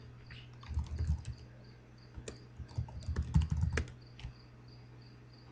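Typing on a computer keyboard: a quick, irregular run of key clicks that starts about half a second in and stops about four seconds in, over a steady low hum.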